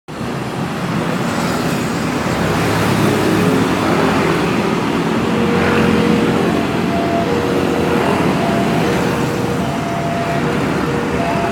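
A steady, loud rumbling roar with faint thin tones that come and go, the strange sound heard before rain; it resembles distant traffic noise.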